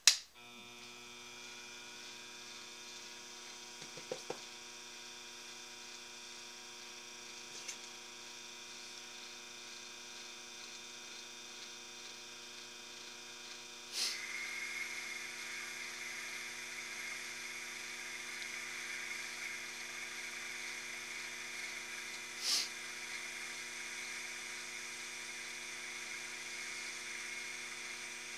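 Taig mini lathe's electric motor switched on with a sharp click, then running steadily with a hum and whine. About halfway through there is another click and a louder, higher whine joins in, with one more click later on.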